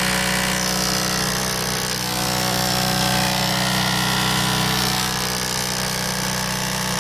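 Electric motors of a Gérard Morin pump rig, a washing-machine pump with a small fan, running with a steady buzzing hum. A high whine sits above the hum for a few seconds in the middle.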